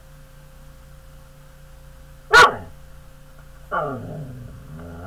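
A husky barks once, loudly, about two seconds in. It then makes a longer, wavering vocal sound that falls in pitch, in two stretches.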